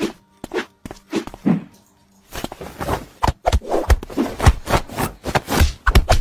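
Two kittens play-fighting around a wooden stool: their paws scrabble and scratch on the stool's wooden leg and the floor mat, with irregular soft knocks and scrapes that come sparsely at first and grow busy after about two seconds.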